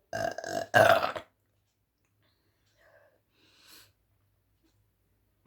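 A woman burps loudly twice in quick succession, the second burp louder. The burps come from chugging fizzy apple soda.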